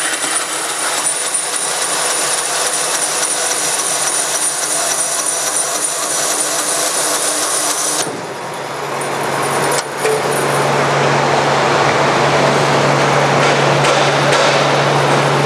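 Forrest Model 204 bandsaw, with a one-inch 3-tooth-per-inch hook-tooth blade running at 3,000 feet per minute, cutting through a roll of polypropylene film wound on a hard cardboard core. About eight seconds in the cutting sound stops, a single knock follows about two seconds later, and the saw runs on with a steady hum.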